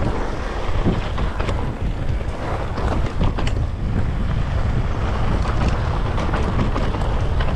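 Wind buffeting the microphone of a camera carried on a moving e-bike, with scattered clicks and rattles from the ride over the ground.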